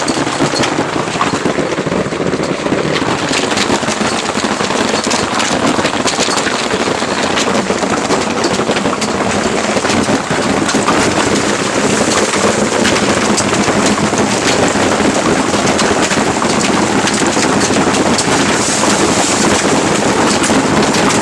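Hailstorm: hail and rain beating down steadily, a dense, continuous patter of countless small hits.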